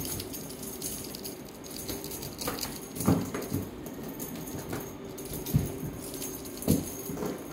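A kitten moving about and playing: light scuffling and pattering with a few soft thumps, the sharpest about three, five and a half and nearly seven seconds in.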